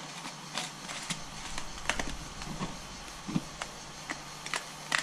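Plastic antifreeze bottle and distilled-water jug being handled: a cap unscrewed and bottles set down on a shelf, making a run of sharp clicks and a couple of duller knocks, over a steady low hum.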